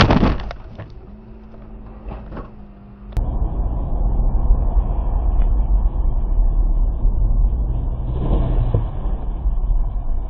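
A loud crash impact as a car is struck, debris crunching and rattling over about a second. About three seconds in it gives way to steady road and engine noise heard inside a moving car.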